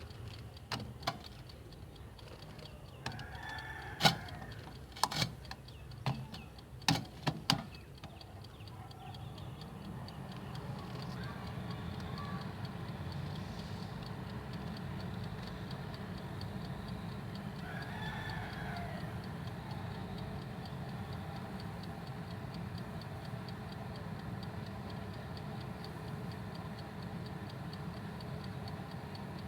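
Halogen convection oven: several sharp clicks and knocks in the first eight seconds as it is set going again, then its fan and heater running with a steady low hum while its timer ticks. A rooster crows twice in the background.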